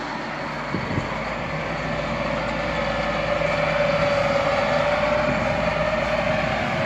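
Vehicle running along a village road, heard from inside: steady engine and road noise that grows a little louder, with a whine rising slightly in pitch and a short knock about a second in.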